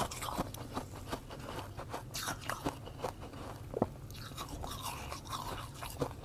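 A mouth crunching and chewing fluffy freezer frost ice close to a clip-on microphone: a quick run of small crisp crunches, with one sharper crack about four seconds in.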